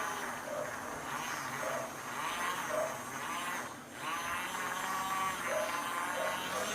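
Battery-powered toy mini washing machine running with water and a makeup brush in the tub: a small electric motor buzzing with a wavering whine about twice a second, dipping briefly about four seconds in. The motor is straining and barely turns the brush.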